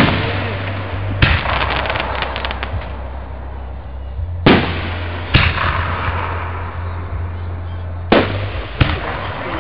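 Aerial fireworks shells bursting: a loud boom right at the start, a quick run of crackling reports about a second later, then single booms about four and a half, five and a half, eight and nine seconds in, each trailing off in a fading rumble.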